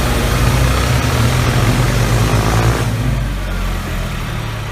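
Engine running steadily with a low hum, easing off about three seconds in.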